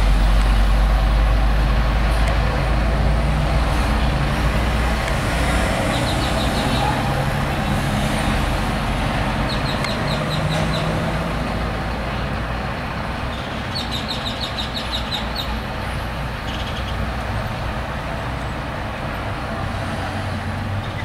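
Street traffic with vehicle engines idling. A heavy low engine rumble in the first few seconds fades away, and a few short runs of quick high chirps come in now and then.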